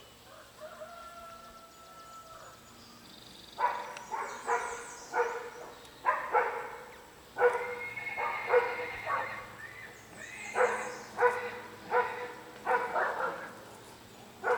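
A dog barking over and over, short barks coming about one to two a second from about three and a half seconds in, with faint high bird chirps behind.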